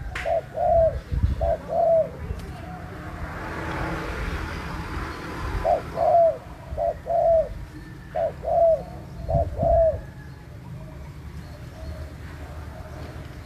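Dove cooing in repeated two-note phrases, four phrases, then a pause of a few seconds, then four more. During the pause a soft rushing noise swells and fades.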